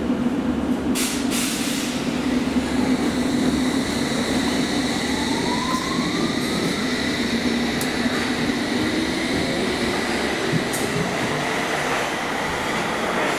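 Electric train running, with a steady hum and a whine that rises in pitch between about five and seven seconds in, and a few sharp clicks.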